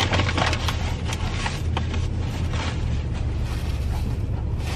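Steady low hum of an idling car heard inside the cabin, with crackling paper napkin and food wrapper rustling over the first few seconds, then thinning out.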